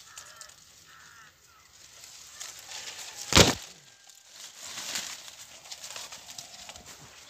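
Leaves and twigs rustling and crackling as a monkey moves through a shrub, with one loud, sharp thump about three and a half seconds in.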